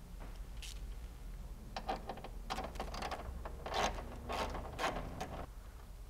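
Hand ratchet with a 10 mm socket clicking in short, irregular bursts as it turns the headlight-housing bolt that holds the HID ground wire.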